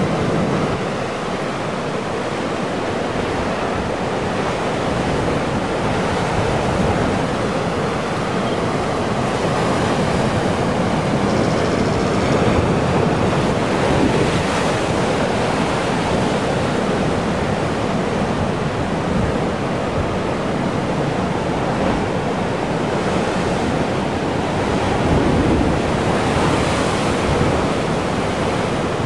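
Heavy ocean surf breaking and churning over a rocky shoreline: a steady, dense wash of water noise that swells as waves surge in, loudest about halfway through as a wave drives water up through the spouting horn.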